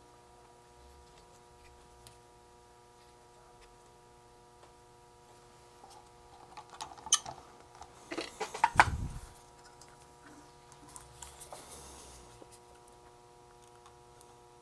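Small clicks and clatter of tools and electronic parts being handled on a workbench during a kit build. A brief busy cluster comes about six to nine seconds in, with two sharp clicks the loudest, over a faint steady hum.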